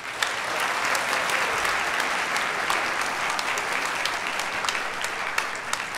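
Audience applauding: dense, steady clapping from many hands that thins a little near the end.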